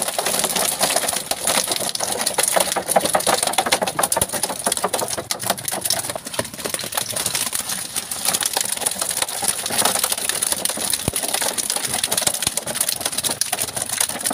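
Live pangasius catfish thrashing in a plastic barrel, a dense, irregular clatter of knocks and wet slaps as the fish beat against each other and the barrel sides.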